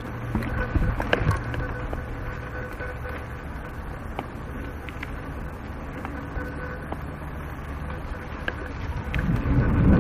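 Mountain bike rolling over dirt singletrack, recorded on a bike-mounted or helmet action camera: steady tyre rumble with the bike's rattle and a few light knocks.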